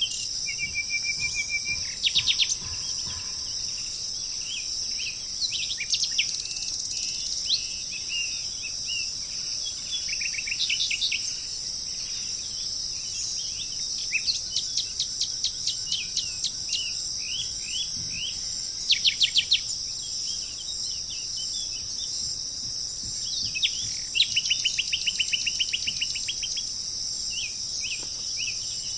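Songbirds chirping and trilling in short, quick series of notes over a steady high-pitched insect drone.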